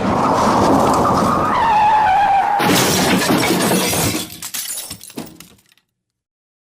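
Car crash sound effect: skidding with a squealing tone that falls in pitch, then a sudden loud impact about two and a half seconds in, followed by glass and debris clattering down and dying away over the next three seconds.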